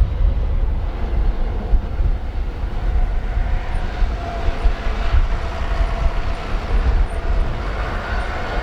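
Strong gusty wind buffeting the microphone, with a jet airliner's engines whining steadily in the distance; the engine tone grows clearer about halfway through.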